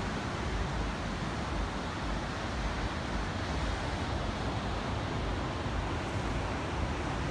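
Steady wind buffeting the microphone, with a low rumble, over the continuous wash of ocean surf.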